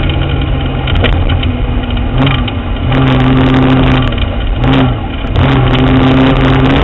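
Off-road vehicle's engine running under steady load, its note dipping briefly three times, with scattered clicks of gravel and dirt under the tyres, picked up from beneath the chassis.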